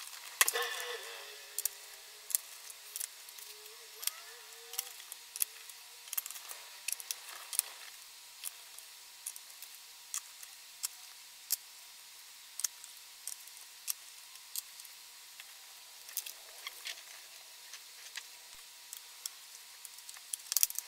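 Sharp plastic clicks and taps from a laptop being reassembled by hand: the keyboard snapped into place at the start, then the case handled and the bottom cover fitted and screwed down, with a click every second or so.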